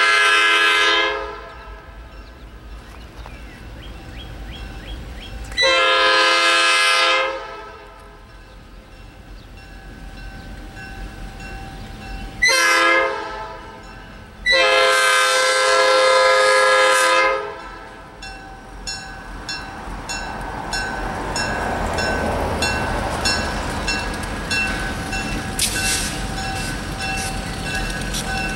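Diesel freight train led by Maryland Midland GP38-3 locomotives sounding its horn in the grade-crossing pattern: long, long, short, long. After the last blast the locomotives' engines grow louder as they approach, with a bell ringing at a steady beat.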